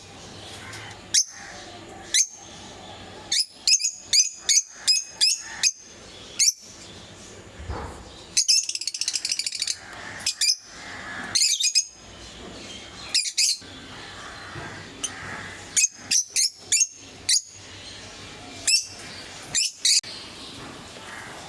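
Pet lovebirds giving short, sharp, high-pitched chirps in scattered bursts, with a fast run of chattering calls about halfway through.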